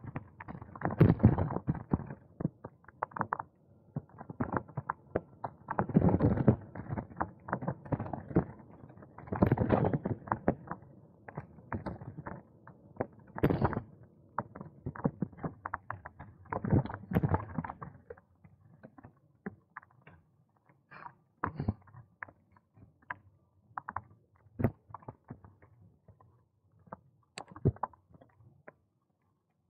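A bicycle rattling and knocking as it rides over a bumpy, gravelly path, with clusters of clattering jolts in the first half thinning to occasional single knocks later.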